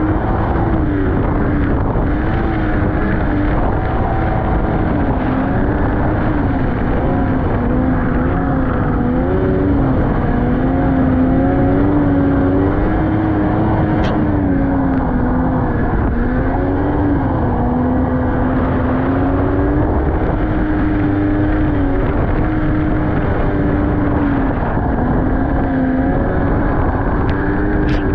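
Snowmobile engine running while riding, its pitch rising and falling as the throttle changes, over a steady rush of noise.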